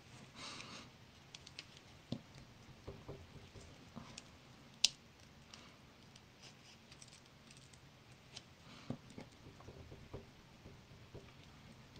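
Faint scattered ticks and light scraping of a bone folder rubbing a rub-on transfer onto a cardstock page, with a short swish just after the start and one sharper click about five seconds in.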